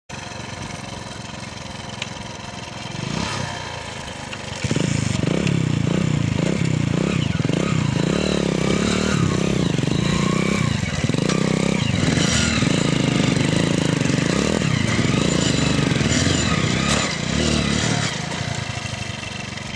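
Hero Honda Splendor motorcycles' small single-cylinder engines running at a low steady pace, then about four and a half seconds in revving hard and held at high revs, wavering in pitch, as the two bikes pull against each other in a tug-of-war; the revs drop off near the end.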